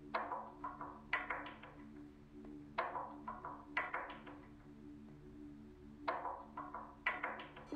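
Background music: groups of struck notes that ring out and fade, coming every second or so over a steady low held tone.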